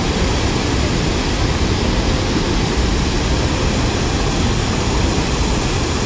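Steady, loud rushing of a large waterfall heard from its brink, where the river pours over the rock edge.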